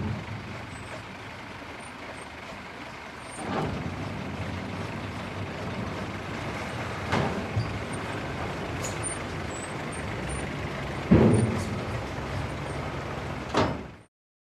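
Steady engine rumble from trucks on a vehicle ferry, with four heavy thumps, the loudest about eleven seconds in. It cuts off suddenly near the end.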